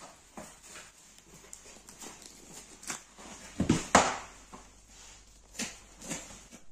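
Irregular knocks and thumps of whole mutton carcasses being handled on a work table, the heaviest thud about four seconds in as a carcass half is lifted and set down, with lighter knocks of knife and meat on the table between.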